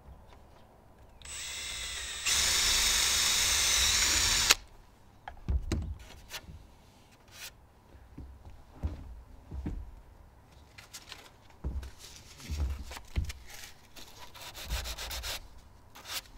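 Cordless drill whines as it spins up, then bores into a wooden picture-frame moulding for about two seconds at full speed and stops abruptly. Scattered knocks and rubbing follow as the wood is handled and sanded by hand.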